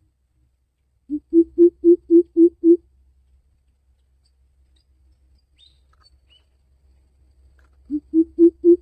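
Greater coucal calling: a run of seven deep, evenly spaced hoots, about four a second, the first one a little lower, then a second run starting near the end.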